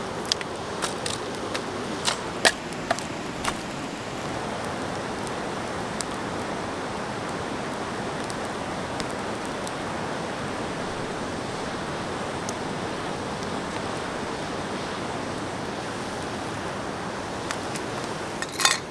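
Steady rushing of river rapids, with a few sharp clicks in the first few seconds and again near the end.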